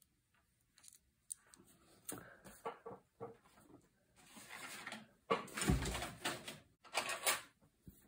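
Steel parts of an over-and-under shotgun's trigger mechanism being handled in the fingers: scattered metal clicks and rubbing. The loudest moment is a dull knock a little past halfway, with more clicks just after it.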